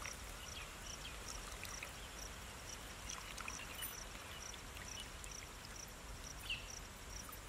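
Whey trickling steadily from a hand-wrung cloth of curdled milk into a plastic bowl: the curds are being strained to make paneer.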